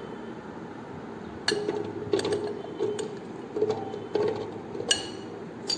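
Boiled jackfruit seeds being tipped from a glass bowl into a plastic mixer-grinder jar. They land in a series of separate clicks and knocks, about one every second or less, with rustling between.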